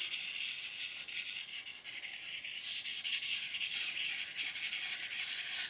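Steel knife blade scraping against a sharpening stone in quick, continuous strokes, stopping suddenly right at the end.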